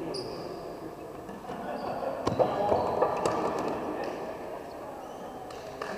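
Game sounds in an indoor slowpitch softball hall: one sharp knock a little over two seconds in, then a swell of voices for a couple of seconds, with a few lighter knocks near the end.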